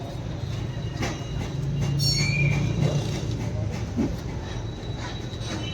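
Steady mechanical hum, most likely the motor of a pressure washer used to wash a motorcycle, with scattered clicks and knocks.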